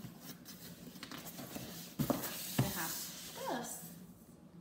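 A large cardboard shipping box handled on a table as it is turned and stood on end: cardboard rubbing and scraping, with two knocks about two seconds in.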